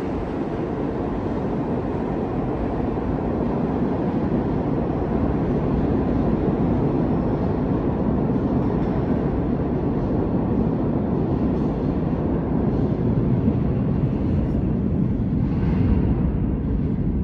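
New York City subway train rumbling in the tunnel, a steady low rumble that echoes through the station and slowly grows louder.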